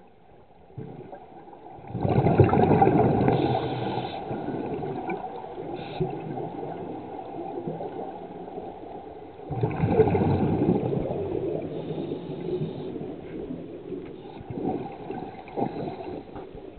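Scuba diver's regulator exhaling underwater, heard as two long bursts of bubbling, the first about two seconds in and the second about ten seconds in, each fading out slowly.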